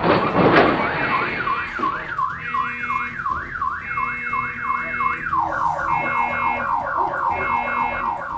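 A loud crash noise dies away in the first second. Then a car alarm sounds, a siren tone sweeping up and down about two to three times a second. About two-thirds of the way through it switches to faster sweeps at a lower pitch.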